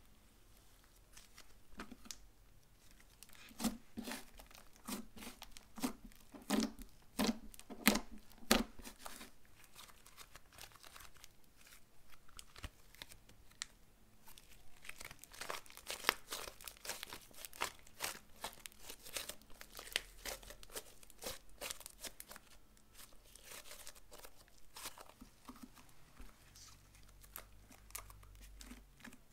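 Hands working a purple slime flecked with gold foil: sticky squishes and sharp pops of trapped air as fingertips press into it, then a dense run of fine crackling and tearing as it is stretched and folded.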